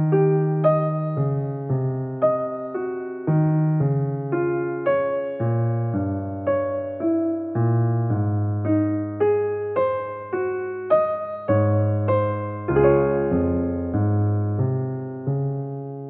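Background piano music: a slow, gentle melody of single struck notes, each fading away, over lower bass notes.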